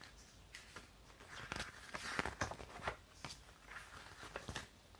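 Light handling noise: paper and snack packaging rustling, with scattered small clicks and taps and a busier stretch of rustle around the middle.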